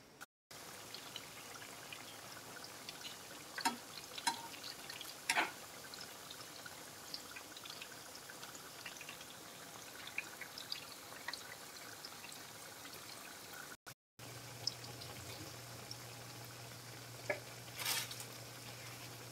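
Corn fritters deep-frying in hot oil: a steady sizzle with scattered pops and crackles. The sound cuts out briefly twice, and after the second break a low steady hum runs under the sizzle.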